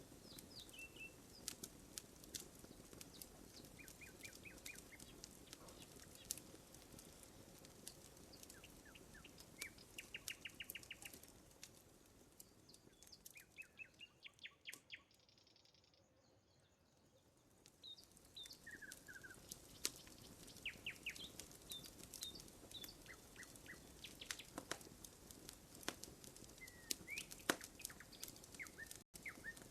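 Wood campfire crackling with sharp, irregular pops, while small birds chirp short rapid trills and single notes. The crackling eases off for a few seconds midway, then picks up again.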